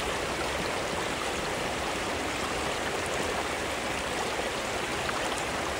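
Steady rush of river water flowing past.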